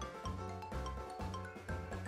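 Background music: quick runs of short, bright notes over a steady bass beat.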